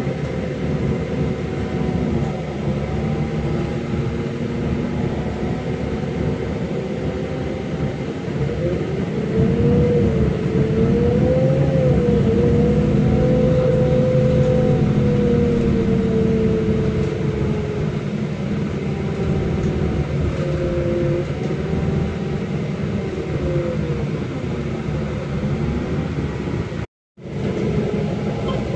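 Car engine and road noise from a moving car, the engine note rising and falling as it speeds up and slows down, louder for a stretch partway through. The sound cuts out for a moment near the end.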